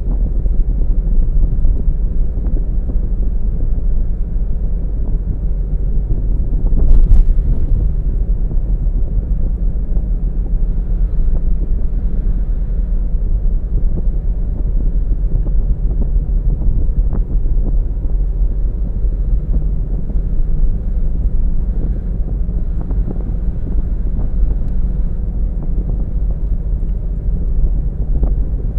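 Steady low rumble of a car driving on a road, engine and tyre noise picked up by a car-mounted camera. A single brief, louder thump comes about seven seconds in.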